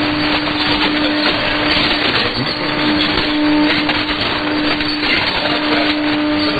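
Shortwave AM reception of a weak broadcast signal on 6100 kHz: mostly hiss and static that rises and falls with fading. A steady low whistle cuts in and out several times.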